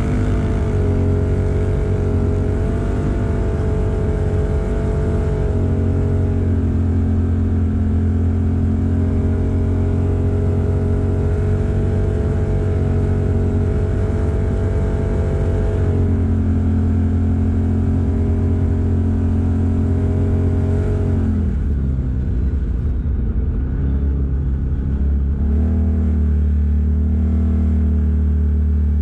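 Vehicle engine running steadily under way on a dirt road, with tyre and road noise. About two-thirds of the way through its note drops, then holds at a lower pitch.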